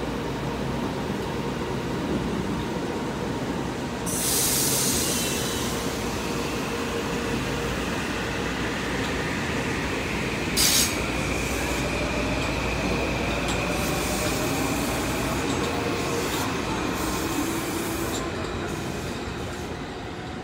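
Metro-North M8 electric train pulling out and rolling past, with steady running noise and a high steady tone through the middle. A burst of hiss comes about four seconds in, a sharp clank about eleven seconds in, and a faint motor whine rises in pitch as it gathers speed. The sound fades near the end as the last car draws away.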